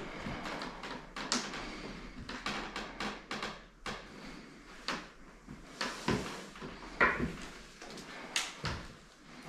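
Irregular wooden knocks and creaks: footsteps and shifting boards on an old wooden staircase littered with debris. The sharpest knocks come about 7 and 8.5 seconds in.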